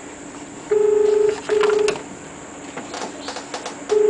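Telephone ringing tone heard down the line: a steady low buzzing tone in a double-ring pattern, two short rings close together, repeated about three seconds later.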